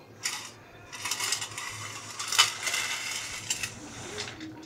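Small firewood pieces clattering and knocking together as a radio-controlled model skid steer loader drives its bucket into a woodpile, with the sharpest knock about two and a half seconds in.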